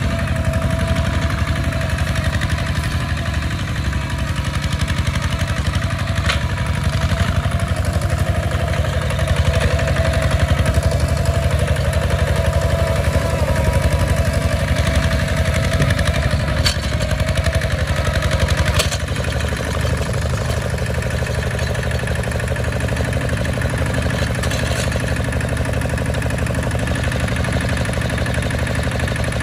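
Kubota RT140 single-cylinder diesel on a two-wheel walking tractor running steadily under load, pulling a plough through dry soil, with a rapid even chugging beat. Its sound drops slightly about two-thirds of the way through, with a few faint clicks.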